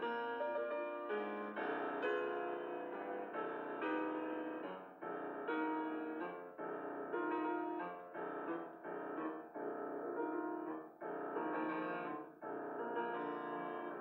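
Piano music: a melody over held chords, with short pauses between phrases.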